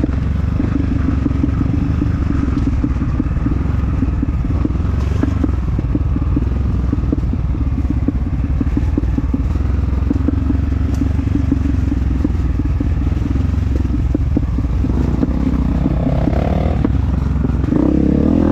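Honda CRF250F's single-cylinder four-stroke engine running under load, with many small knocks and rattles over it; near the end the revs climb.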